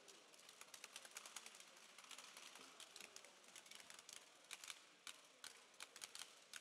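Faint, irregular light clicks and ticks of hockey trading cards being handled and flipped through, over a faint steady hiss.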